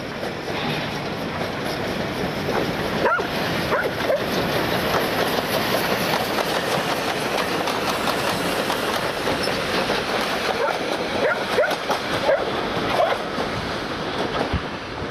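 Steam-hauled passenger train headed by locomotive W934 running past close by: the rolling noise of locomotive and carriages on the rails swells as the train goes by and eases a little as it draws away. A few short high squeals come through, around three seconds in and again later.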